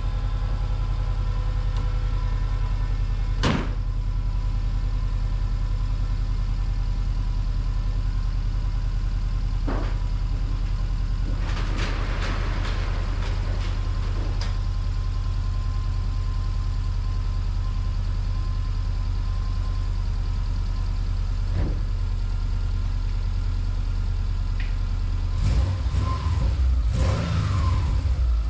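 Subaru Legacy engine idling steadily, with a few sharp clicks over it. Near the end it gets louder and rougher for a few seconds.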